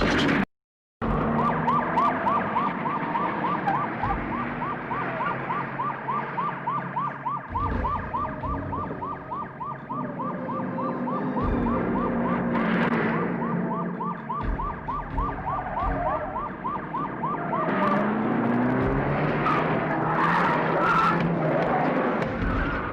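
Action-film sound effect of a vehicle siren wailing in fast yelping sweeps, about four a second, over the running of car engines; the siren stops about 17 seconds in and the vehicle noise goes on.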